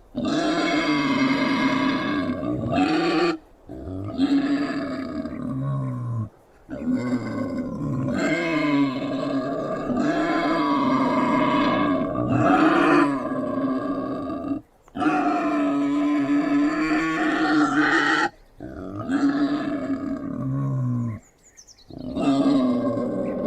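Wild boar growling: long, pitched growls of two to four seconds each, about six in all, separated by short gaps.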